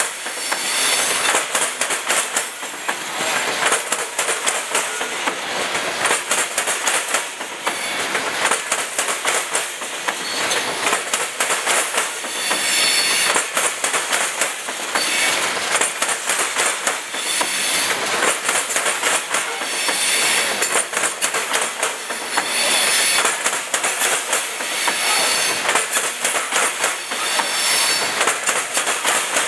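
Freight train of loaded hopper cars rolling past close by: a steady rumble of steel wheels with a fast clicking over the track and a high wheel squeal that comes and goes several times.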